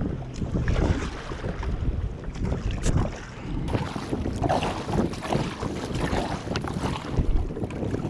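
Kayak being paddled with a double-bladed paddle: irregular splashes of the blades dipping into the water, more frequent from about four seconds in, under a low rumble of wind on the microphone.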